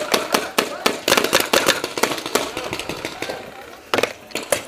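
Paintball marker fire: a rapid string of sharp pops, densest over the first two and a half seconds, thinning out, then a few more near the end.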